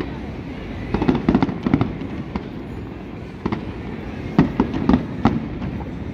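Aerial fireworks shells bursting in an irregular string of sharp bangs, several in quick succession about a second in and another cluster between about four and five and a half seconds in.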